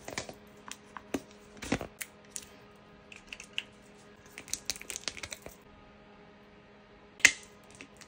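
Skincare bottles and packaging handled close to the microphone: scattered clicks and taps, a quick run of rustling clicks about halfway, and one sharp click near the end.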